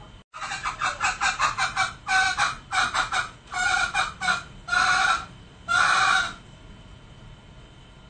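Male green junglefowl calling: a quick run of about nine short clucks, then five longer calls of about half a second each.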